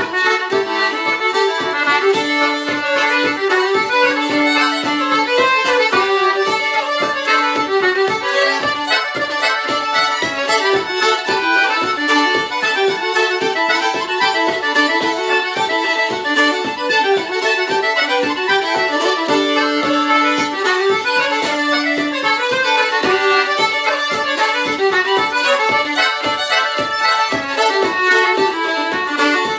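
Fiddle and concertina playing a traditional Irish reel together, a steady, quick run of notes that never breaks.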